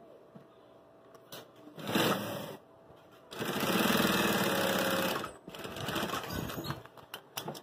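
Industrial straight-stitch sewing machine stitching a bag's fabric flap: a short burst about two seconds in, then a longer, steady run of about two seconds. After that, fabric rustles as the piece is shifted and turned under the needle.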